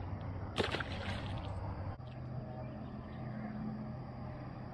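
A short splash of water about half a second in, lasting about half a second, over a steady low outdoor background.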